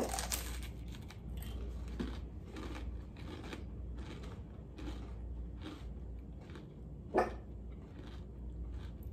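Crunchy bites into raw green bell pepper pieces spread with cream cheese and topped with Takis rolled tortilla chips, then steady crunchy chewing, a crunch about every half second to second. A short, louder sound about seven seconds in.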